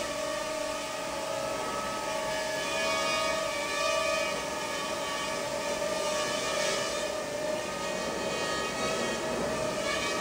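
Parrot Rolling Spider minidrone in flight, its small propellers giving a steady whine of several pitches that waver slightly.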